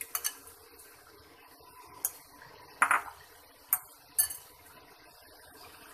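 A handful of separate sharp clinks and taps as a glass bowl and spoon knock against the rim of an aluminium pressure cooker while ginger paste and green chillies are scraped in, the loudest with a short ring about three seconds in.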